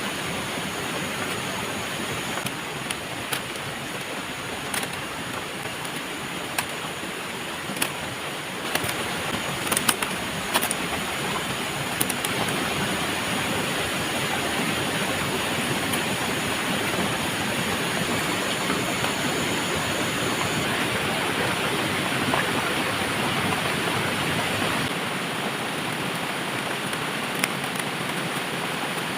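Steady rushing noise like running water, with scattered sharp clicks in the first half.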